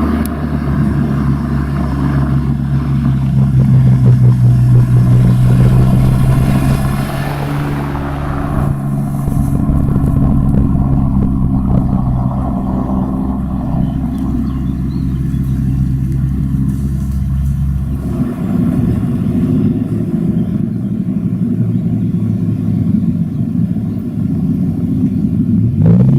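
Car engines and exhausts running at low speed, a steady low rumble. It gets louder for a few seconds around 5 to 8 seconds in, and a different-sounding engine takes over about 18 seconds in.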